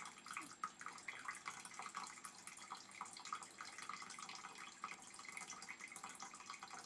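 Small decorative well-shaped water fountain trickling and dripping into its basin: a continuous run of irregular little plinks and splashes.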